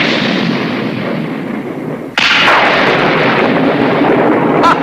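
Cartoon thunder: a thunderclap dying away, then a second sudden crack of thunder a little over two seconds in that rumbles on.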